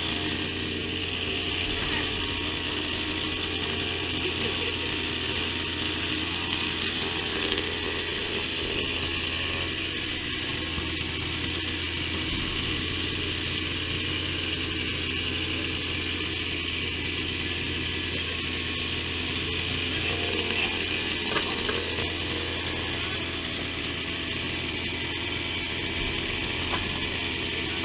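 Steady mechanical running noise from a small engine or motor: a constant low hum with an even hiss above it, and a few faint knocks.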